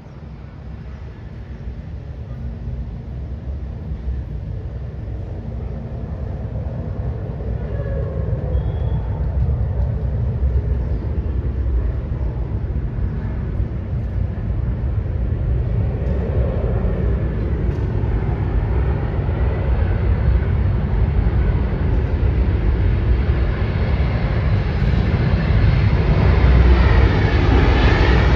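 Airplane engines rumbling, growing steadily louder as the aircraft approaches, with a faint sweeping shimmer in the sound near the end.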